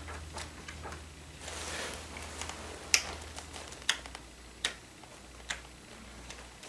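A book being handled: a soft page rustle, then four sharp taps or clicks, about a second apart.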